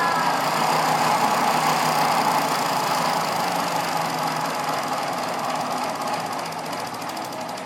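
A motor vehicle's engine running over outdoor background noise, slowly fading away in the second half.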